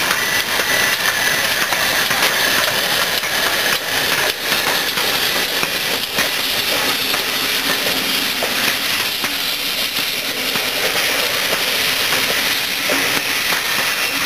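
GWR Manor class steam locomotive and its coaches rolling past close by: a steady hiss of steam over the rumble of the train, with occasional wheel clicks on the rail joints as the coaches go by.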